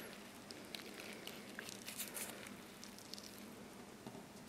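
Quiet room tone with a faint steady hum and a few soft, scattered clicks and rustles.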